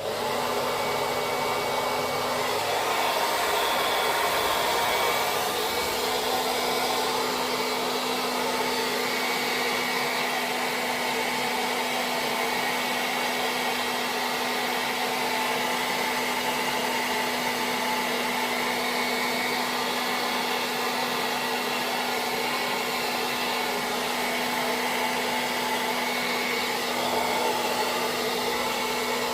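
Hair dryer running continuously: a steady blowing rush with a constant motor hum underneath.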